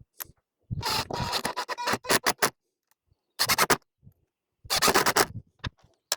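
Hinge screws being driven back into a door: three bursts of rapid scraping and clicking with short pauses between, the first and longest lasting nearly two seconds.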